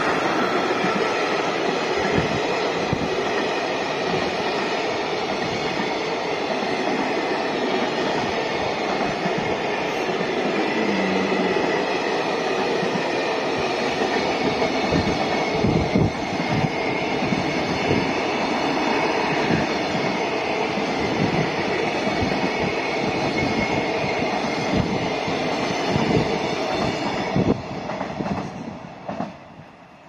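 Freight train of container wagons and tank cars rolling past at close range, with a steady rumble and a dense clatter of wheels on the rails. It fades over the last few seconds.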